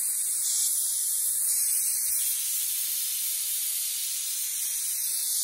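Pressure cooker whistle valve venting steam: a steady, high hiss of escaping steam, the sign that the cooker has built up full pressure.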